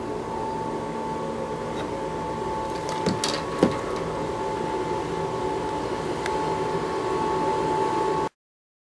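Truck-mounted road sweeper running as it sweeps, a steady mechanical drone with a held whine from its suction fan and brushes, and a couple of short knocks partway through. The sound cuts off abruptly about eight seconds in.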